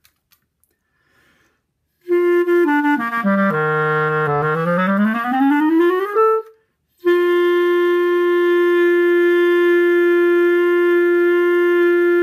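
Clarinet played with a newly made cane reed to test it. After a few faint clicks, it steps down a scale to the bottom of its range and slides back up. After a short break it holds one long, steady note.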